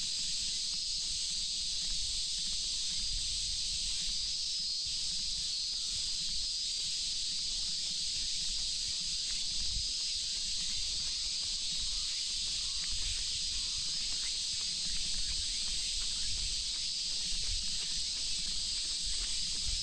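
Cicadas droning in a dense, steady summer chorus, a continuous high-pitched shrill that does not break.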